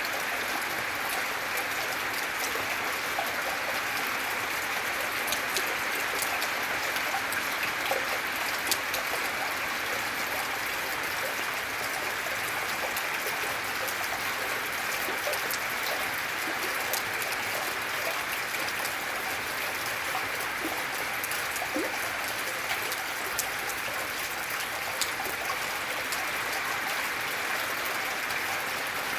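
Gentle, steady rain: an even hiss of falling rain with scattered individual drops ticking throughout.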